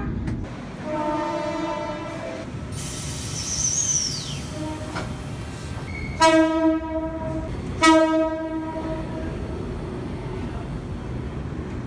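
Sydney electric passenger trains sounding their horns over a steady rumble of train and rail noise. A horn chord sounds for about a second and a half early in the clip, and a high squeal falls in pitch a little later. Past the middle come the loudest sounds: two short horn blasts about a second and a half apart from a train approaching an underground platform.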